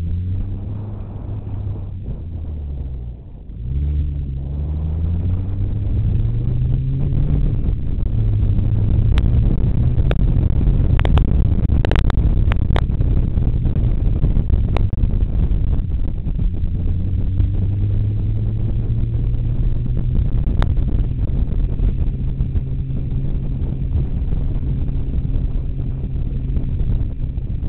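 Mini Cooper's engine accelerating, its pitch climbing, falling once at a gear change about three seconds in, then climbing again. It then settles into steady cruising under heavy tyre and wind noise, heard from beside a wheel. A few sharp ticks come in a cluster around the middle and once more later.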